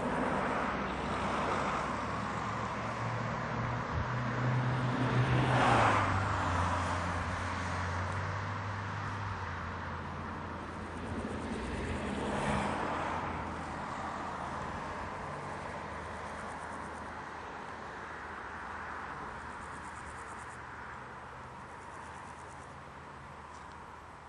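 Engine noise from a passing motor, a steady low drone that swells loudest and drops in pitch about six seconds in, swells again around twelve seconds, then slowly fades.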